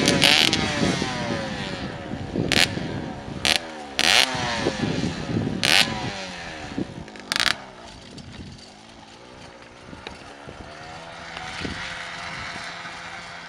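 Dirt bike engine revving up and down as it climbs a steep dirt trail, growing fainter as the bike pulls away. Several sharp knocks come through in the first half.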